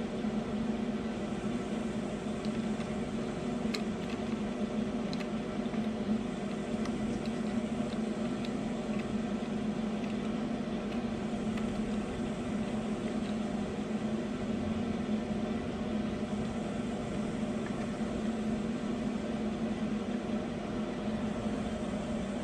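Steady mechanical hum of a fan-like motor running in a small room, with a few faint light clicks about four to nine seconds in.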